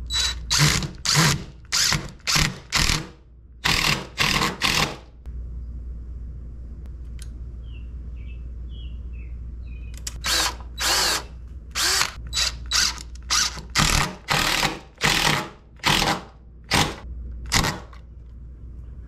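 Cordless impact driver run in short bursts, driving screws to fasten a brass hose bib's flange into wooden blocking. There are about nine bursts in quick succession, a pause of several seconds, then about ten more.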